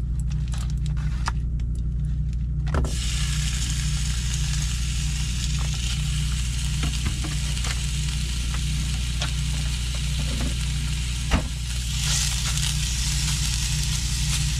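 Ground turkey sizzling as it fries in a hot pan; the sizzle starts about three seconds in and then holds steady. Under it runs a steady low hum, with a few light clicks of utensils and one sharp knock near the end.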